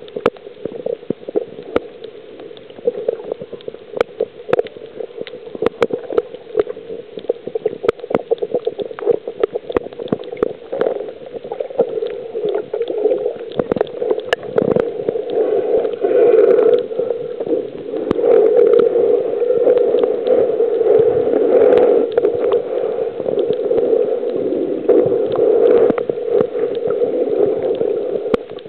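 Muffled underwater sound picked up by a camera held below the surface: a steady low rush of moving water, peppered with scattered sharp clicks, growing louder over the second half.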